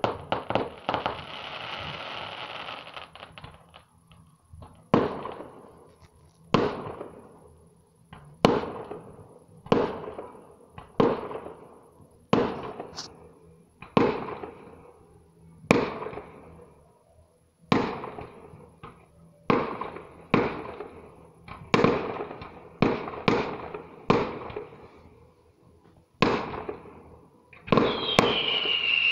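Fireworks display: a string of about twenty aerial shell bursts, each a sharp bang that fades out, coming every second or two. A crackling hiss follows the first burst, and a falling whistle comes near the end.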